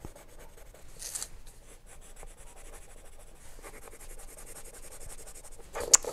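Colored pencil scratching over paper in quick back-and-forth shading strokes, with a single sharp click just before the end.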